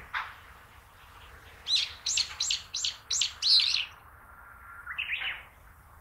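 Brown-eared bulbul giving its call (jinaki, not song): one high note at the start, then a quick run of about six loud, sharp high-pitched notes, and a shorter, lower call about five seconds in.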